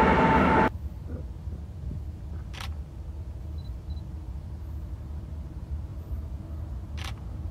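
A passing intermodal freight train's rumble cuts off abruptly under a second in, leaving a low steady rumble. A camera shutter clicks twice, about four and a half seconds apart.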